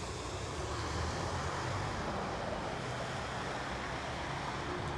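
A car driving slowly through standing floodwater on the street, its tyres moving through the water, over steady traffic noise.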